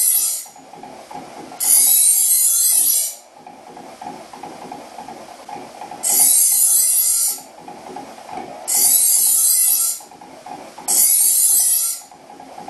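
Porter-Cable bench grinder running with a steady hum while a steel knife blade is drawn across its spinning rouge-dressed pressed-paper wheel, stropping off the burr. Each stroke is a loud hiss of a second or so, with quieter gaps between. There are four strokes plus the end of one at the start.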